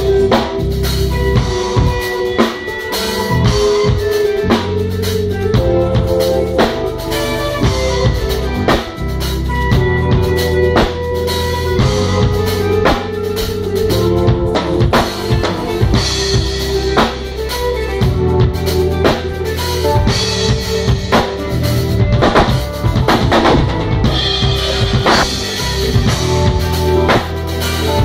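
Live band jam: a drum kit playing kick, snare and rimshots over keyboards, with the keyboardist playing the bass line on split keys because there is no bass guitar.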